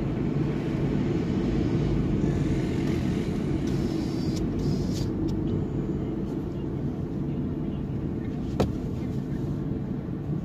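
Car being driven, heard from inside the cabin: a steady low rumble of engine and road noise, with one sharp click about eight and a half seconds in.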